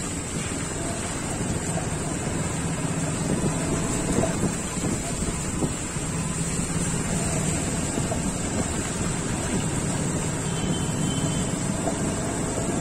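Motorcycle engine running at low speed in slow traffic, under steady wind noise on the microphone.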